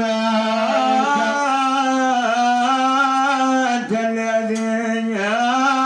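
A man's voice singing Moroccan Sufi madih (devotional praise chant), drawing out long held notes that bend and ornament in pitch, with short breaks between phrases. It sounds amplified through a portable PA speaker in a small room.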